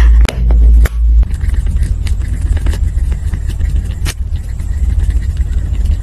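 Close-miked hand and notebook handling during marker and pen work on a journal page: a heavy, uneven low rumble with faint scratching and a few sharp clicks, the loudest just after the start and at about four seconds.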